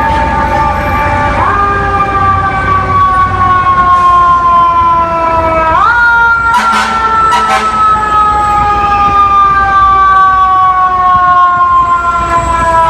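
Fire truck's mechanical siren, of the Federal Q type, wound up twice: each time the pitch jumps up quickly, then falls slowly as the rotor coasts down. Two brief sharp blasts come about midway, over a low truck engine rumble.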